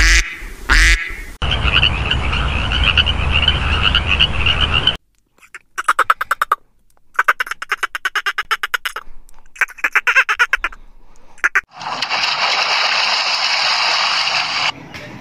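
White domestic ducks quacking in a dense chorus. From about five seconds in come runs of rapid, evenly spaced dolphin clicks in several bursts. Near the end there is a steady underwater hiss of rushing water and bubbles.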